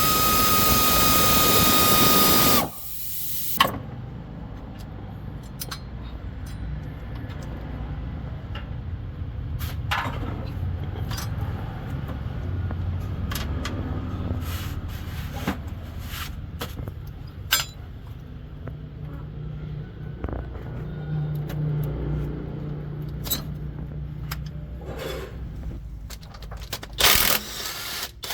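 A burst of compressed-air hiss with a steady whine, like a pneumatic tool running, for about two and a half seconds at the start. Then a low engine rumble with scattered metallic clinks of tools being handled, and another short hiss of air near the end.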